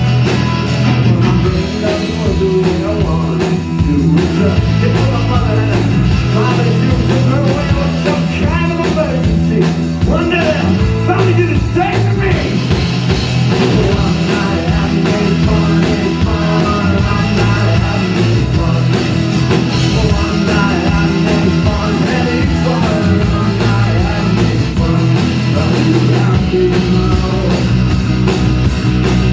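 Live rock band playing loudly, with guitar, bass and drums under a singer's voice.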